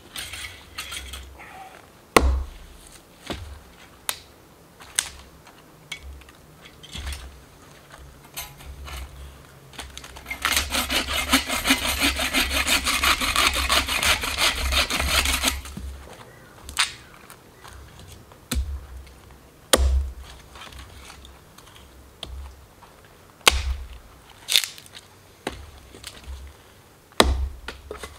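A saw cutting through wood with fast, even strokes for about five seconds in the middle, while firewood is processed. Before and after it come scattered sharp knocks and cracks of wood being handled.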